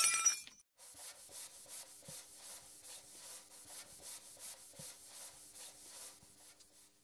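Quiet rhythmic scratching, like a dry brush or pencil rubbed back and forth on paper, about three strokes a second. It is the sound effect for a painted brush-stroke title animation, and it fades out near the end. It follows the brief loud tail of the intro sting at the very start.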